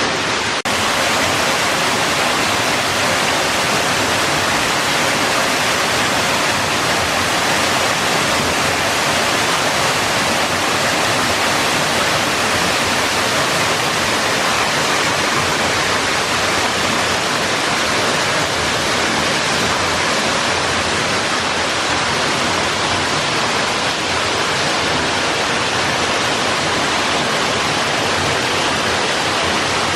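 Waterfall and cascade pouring into a plunge pool: a loud, steady rush of falling water.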